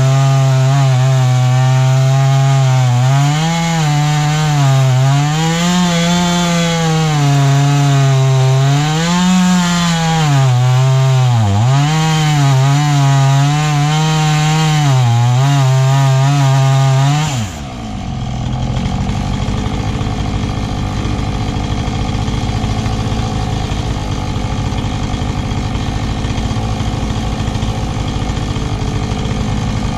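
Chainsaw in a board-cutting fixture ripping a mesquite log lengthwise, running at full throttle with its pitch sagging and recovering under the load of the cut. About 17 seconds in, the pitch drops suddenly and it settles to a lower, steady running sound.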